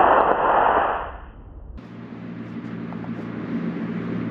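Rushing hiss of a C-class model rocket motor as a 3D-printed rocket climbs away after launch, fading out a little over a second in. The sound then changes abruptly to a quieter steady low hum.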